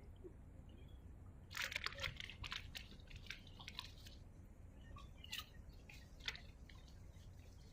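Faint dripping and trickling water over a low steady rumble, with a cluster of crackling drips about one and a half to four seconds in and a few scattered drips later.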